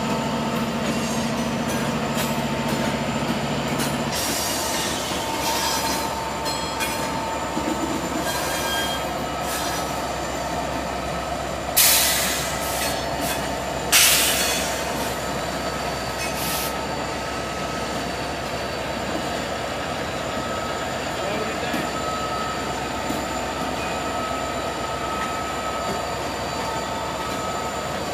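Norfolk Southern freight train passing close by behind its diesel locomotives, a GE D8-40CW, a D9-40C and two EMD SD60s, with steady rolling noise and wheel squeal. A low steady tone stops about four seconds in, and two sharp bangs come about two seconds apart near the middle.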